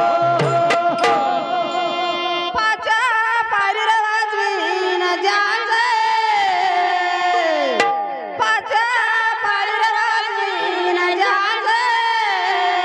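Devotional bhajan singing: a few hand-drum strokes in the first second, then a woman's voice holding a long, wavering melodic line over musical accompaniment, with the pitch sliding down at the ends of phrases.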